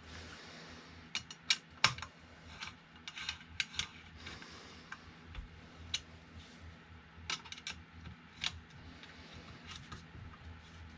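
Hands working with small printer-assembly parts and tools: a scattered string of sharp clicks and taps, the loudest a couple of seconds in, with a few short rustles.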